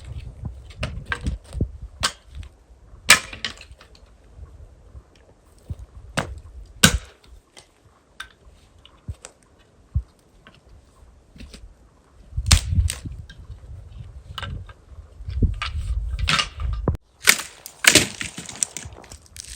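A series of sharp, irregular knocks and cracks, the loudest about three and seven seconds in, with stretches of low rumble in between.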